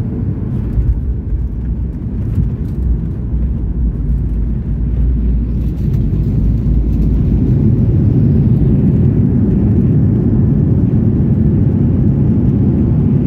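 Airliner cabin noise during the landing rollout: a loud, steady low rumble that grows louder about halfway through.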